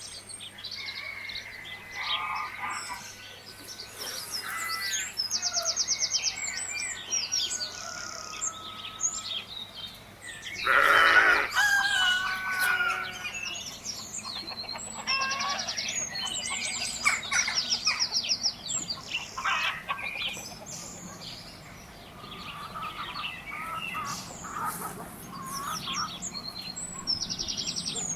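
Farmyard ambience: a rooster crows about eleven seconds in, the loudest sound, amid hens clucking and small birds chirping and trilling throughout.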